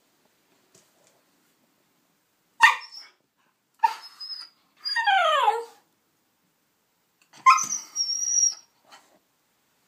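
A white Shiba Inu barking and yelping in four separate outbursts, one of them a long whine that falls in pitch. It is vocalising in frustration at a dried hoof chew that it cannot get.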